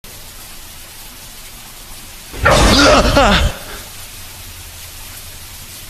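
A short wordless vocal sound, about a second long, comes a little over two seconds in, its pitch wavering up and down. A steady hiss runs under it throughout.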